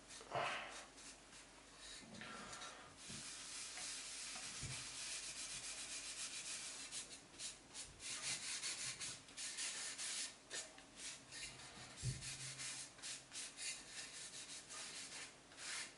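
A cloth rubbing a beeswax and coconut oil wood finish into a wooden utensil holder: faint, repeated wiping strokes, quickest in the middle, with a couple of light knocks from handling the box.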